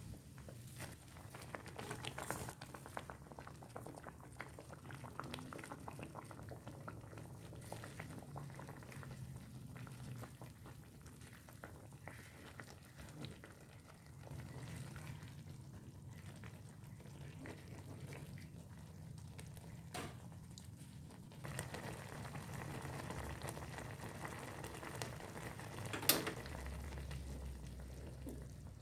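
Clear broth bubbling steadily at the boil in a pot. Two sharp clicks, the louder one near the end.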